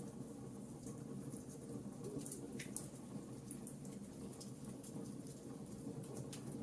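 Wood fire burning in a fireplace: irregular sharp crackles and pops from the logs over a steady low rush of the flames.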